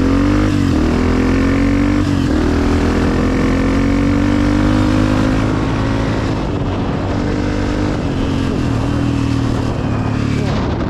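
Honda CRF250F dirt bike's single-cylinder four-stroke engine, through a Pro Circuit exhaust, pulling under load. Its pitch climbs through the first half with short dips at the gear changes, then eases off.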